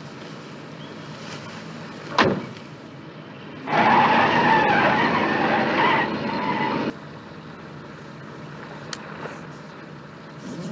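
Car tyres screeching in a skid for about three seconds, starting about four seconds in, with a brief sharp sound about two seconds in.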